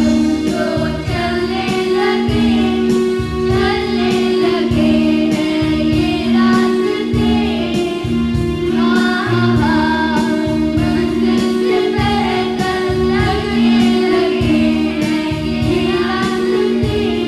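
A group of children singing a song together over backing music with a steady beat and a sustained drone underneath.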